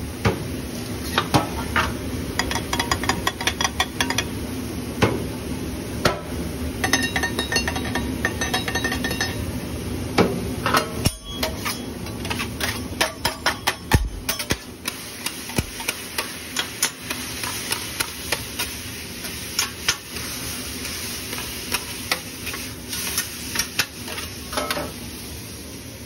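Metal spatulas clattering and scraping on a flat-top griddle, sharp taps coming in quick runs with a metallic ring, over food sizzling on the hot plate and a steady low hum.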